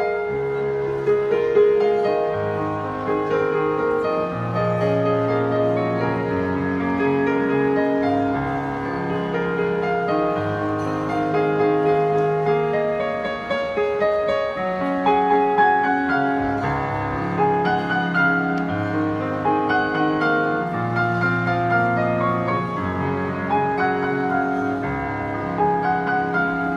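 Background piano music, slow, with long held notes and chords.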